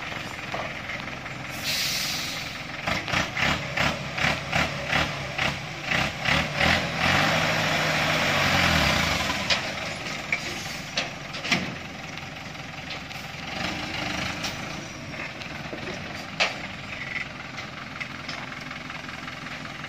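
Light truck's engine revving in a quick string of surges, then held at higher revs for a couple of seconds before dropping back to a lower run, as the truck strains to climb out of the mud on the slope. A few sharp knocks stand out near the end.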